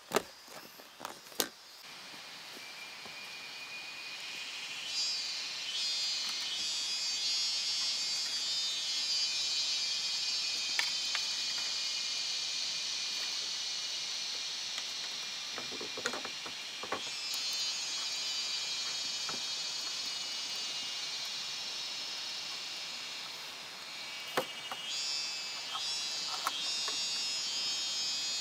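A chorus of insects chirring in a high, finely pulsing band that swells up over the first few seconds and then holds. A few sharp knocks and taps sound now and then.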